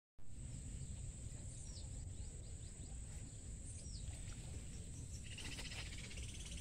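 Outdoor ambience: a steady high-pitched insect drone with a few short, downward-sliding bird chirps, and a dense rapid trill near the end, over a low rumble.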